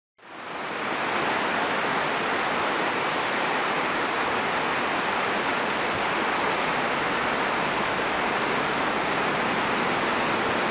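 Steady rushing of a fast mountain river's white water over rocks, fading in over the first second.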